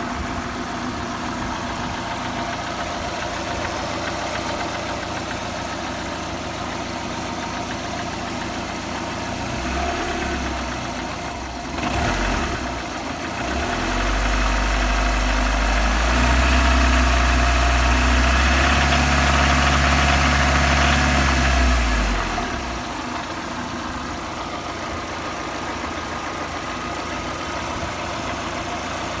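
VAZ-21124 16-valve 1.6-litre four-cylinder engine idling with a knock that sounds the same cold or hot and whose cause the owner cannot find. About midway the engine is held at higher revs and is louder for several seconds, then it drops back to idle.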